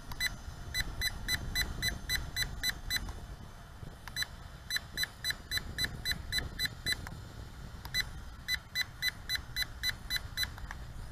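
Toy quadcopter remote control beeping in three quick runs of short high beeps, about four to five a second, with a pause of about a second between runs. These are the button beeps as the remote's camera-tilt control is held.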